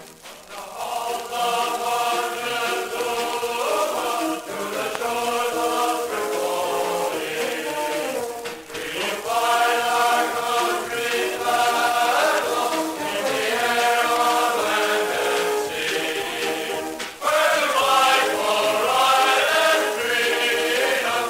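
A choir singing in phrased lines, swelling into a louder passage about seventeen seconds in.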